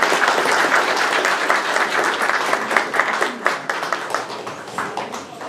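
A roomful of people applauding, a dense steady clapping that thins out and fades near the end.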